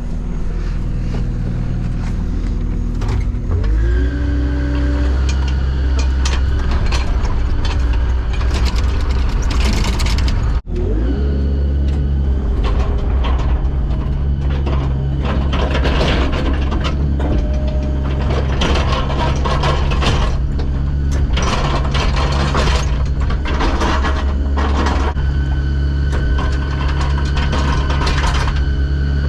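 Heavy-equipment diesel engine running under load, revving up about four seconds in, with repeated clanks and knocks from loading rock and debris. The sound drops out briefly near the middle.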